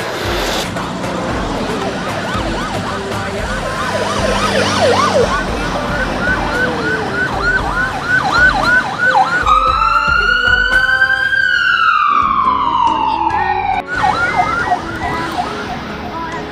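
Electronic siren sounding in a fast repeated chirping yelp. About ten seconds in it switches to a long wail that rises slowly and then falls away over some four seconds, then goes back to the quick chirps.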